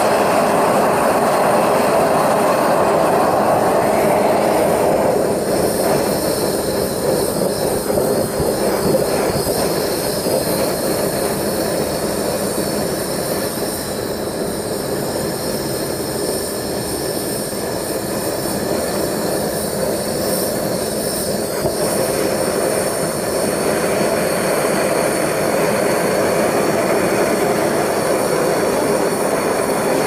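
Two propane torch burners firing into a small vortex-style furnace, a loud steady rushing hiss. The sound dulls about five seconds in and brightens again about 23 seconds in. The owner says the lid's exhaust port is too small and chokes the burners right down.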